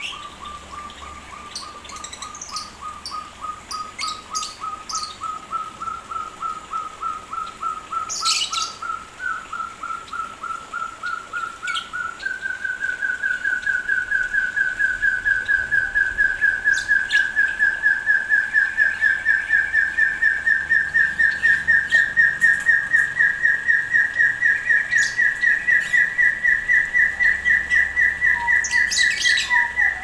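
Puyuh gonggong, an Arborophila hill partridge, singing a long run of rapid, evenly repeated whistled notes that climb steadily in pitch and grow louder, stepping up in pitch and volume about twelve seconds in. Short high chirps from other birds come now and then.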